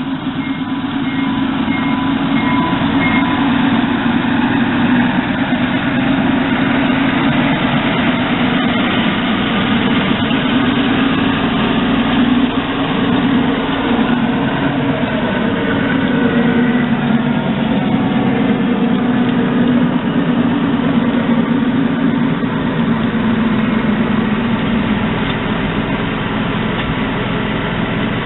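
Large-scale ride-on model diesel locomotive running along its track, a steady mechanical drone that holds level throughout.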